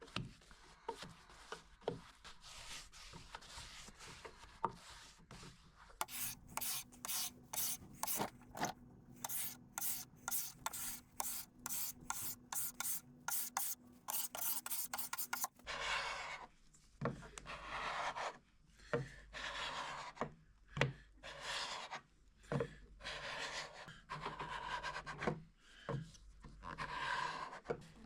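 A hand tool is scraped over a mahogany dresser's wooden surface to remove its old finish. From about 6 s there are quick, even strokes at two or three a second, then a looser, rougher rasping from about halfway through.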